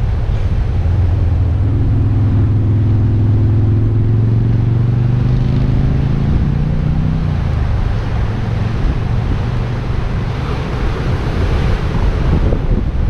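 Northern elephant seal giving a long, low call: a deep drone that rises slightly in pitch and stops about seven seconds in. Wind and surf follow.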